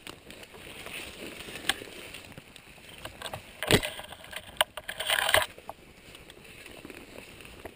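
Someone pushing through forest undergrowth: twigs and dry brush rustling and crackling, with one sharp crack a little past the middle and a short scrape soon after.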